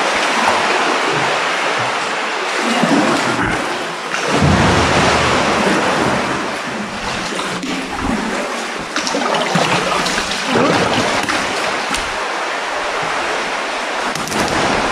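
Sea water sloshing and splashing against the rock and around a kayak inside a sea cave, with paddle strokes in the water; a steady, loud wash of water noise.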